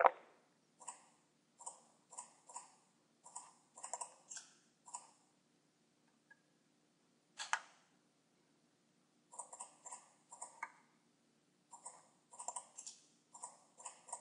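Computer mouse buttons clicking in short irregular runs of quick clicks, with a louder, sharper click at the start and another about seven and a half seconds in.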